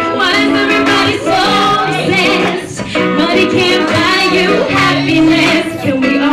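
Live pop song: a woman singing over a backing track with guitar and a steady bass line.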